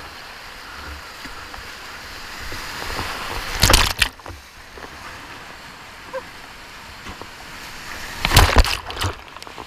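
Whitewater rapid rushing steadily around a kayak, heard close up at the paddler's head. Two loud surges of water crash over the camera: one about four seconds in, and another about four seconds later.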